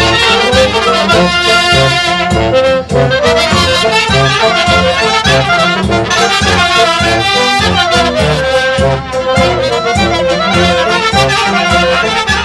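Live brass band playing a lively Romanian folk tune, with trumpets and trombones over a steady oom-pah beat.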